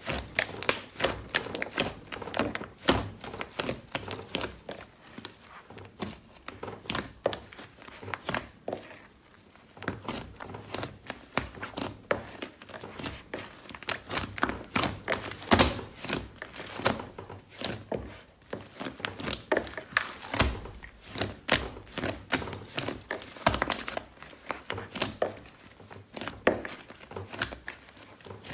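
Hands squeezing and poking slime, making rapid, irregular crackling clicks and pops, with a brief lull about nine seconds in.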